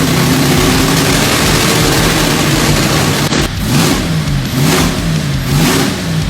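Car engine idling steadily, then blipped with short revs about once a second through the second half.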